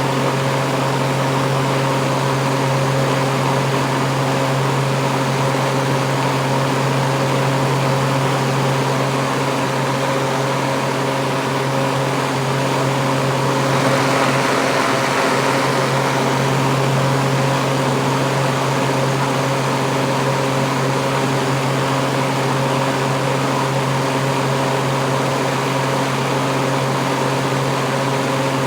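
Kitchen exhaust fan running steadily, heard close up: a low motor hum with a few steady whining tones over the rush of air. The hiss swells briefly about halfway through.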